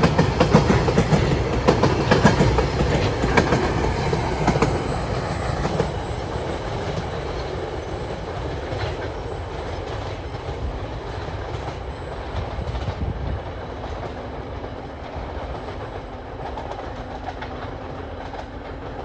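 Freight train's container flat wagons rolling past, wheels clicking over the rail joints with a low rumble. About five seconds in the sound starts to fade steadily as the train draws away.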